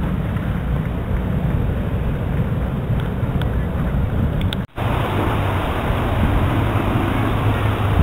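Steady wind rumble on the microphone with outdoor background noise. The sound drops out for a moment just past the middle, then carries on with a brighter hiss.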